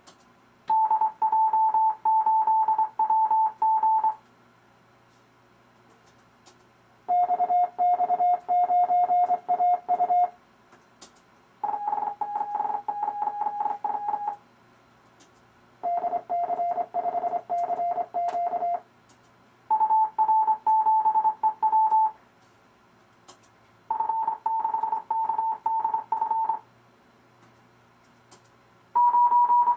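Morse code (CW) tone from the RufzXP practice program sending amateur radio call signs: seven separate call signs keyed in dits and dahs, each a few seconds long with a short pause between. The pitch of the tone changes from one call sign to the next.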